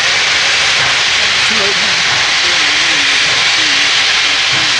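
Steady, loud hiss of steam from Nickel Plate Road No. 765, a 2-8-4 Berkshire steam locomotive, working hard.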